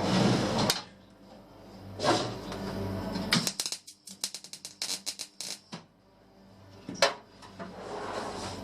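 Tack welding on a car's floor-panel steel: several short crackling bursts, a run of rapid clicks in the middle, and one sharp crack near the end.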